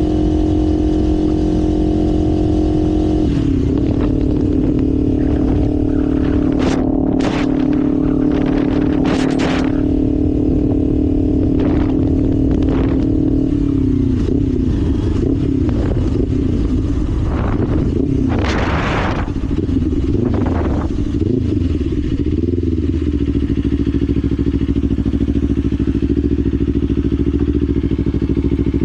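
Kawasaki Ninja 500 parallel-twin engine running at a steady cruise, easing off slightly about three seconds in, then wavering and falling in revs midway before settling to a steady lower note near the end. Short rushes of noise come and go in the middle.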